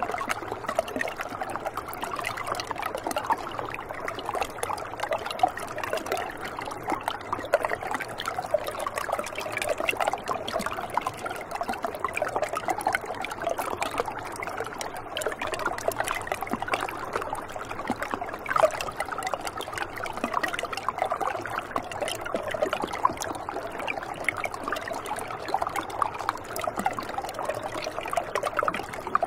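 Shallow water trickling and rippling over smooth rock: a steady, busy run of small splashes.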